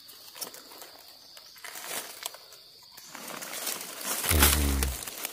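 Rustling and crackling in dry leaf litter and undergrowth, with a steady high insect drone. About four seconds in, a brief loud low hum lasts under a second.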